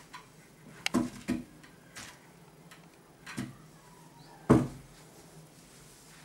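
Handling knocks from a sock aid, its chrome wire cage and wooden base clacking as a sock is worked over the cage: a handful of short knocks, the loudest about four and a half seconds in.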